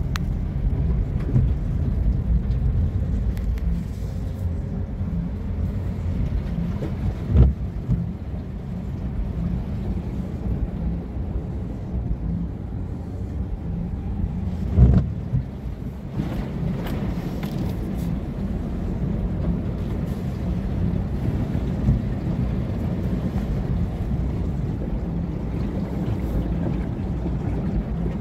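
Steady low rumble of a car driving through floodwater, heard from inside the cabin, with two sharp thumps, one about seven seconds in and one about halfway through.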